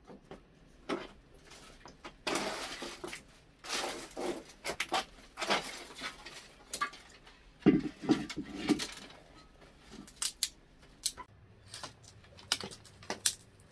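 Dry brushwood sticks being snapped and handled by hand as kindling, a run of irregular sharp cracks and rustles, with a metal pot clinking now and then.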